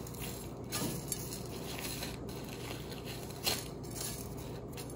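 Breadcrumbs being sprinkled and pressed by hand onto an egg-coated bread roll on a plate: soft rustling and crunching of crumbs, with a couple of slightly louder brushes about a second in and again about three and a half seconds in.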